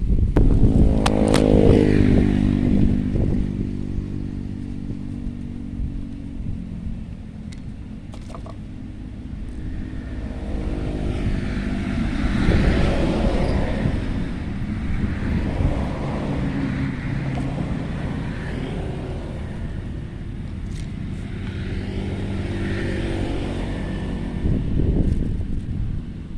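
Motor vehicles passing one after another, the first engine's pitch dropping as it goes by in the first few seconds, with more swells of engine and road noise later.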